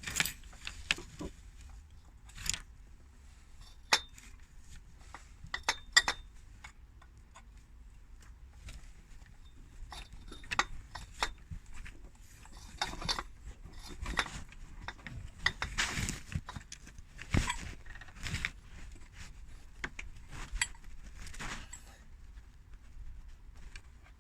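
Scattered light metallic clinks and knocks as the smaller coolant transfer pipe is twisted and pushed into its dry O-ring seals on an M62TU V8 engine.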